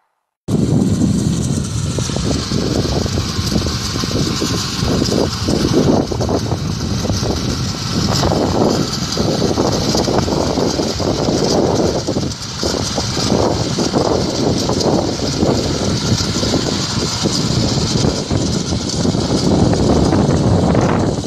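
Small petrol engine of a walk-behind rotary tiller running steadily while its tines work the soil, coming in suddenly about half a second in.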